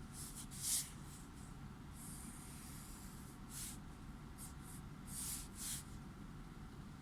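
Drawing strokes on paper: a series of short scratchy strokes, with one longer stroke about two seconds in and the loudest stroke just under a second in.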